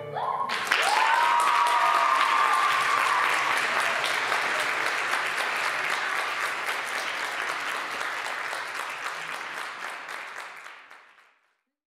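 Audience applauding, starting about a second in as the music stops. The clapping slowly weakens and fades out near the end.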